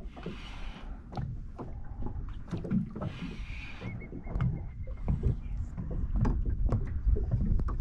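Small waves slapping and lapping against a boat's hull, with a steady low rumble of wind on the microphone.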